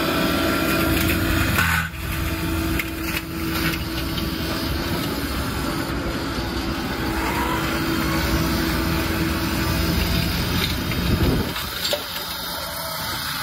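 Excavator engine running with its hydraulic flail mower attachment spinning, a steady hum with a few sharp knocks about two and three seconds in. The sound eases slightly near the end.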